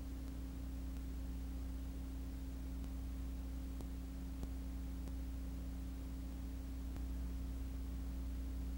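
Steady low electrical hum with a few faint clicks a little past the middle; no sound of the karts themselves.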